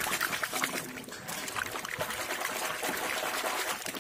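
Muddy water splashing and sloshing continuously as a hand swishes a plastic toy truck back and forth through a shallow puddle to wash the mud off.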